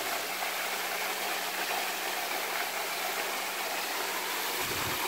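Thin, low-flow waterfall falling into a rock pool: a steady, even rush of splashing water.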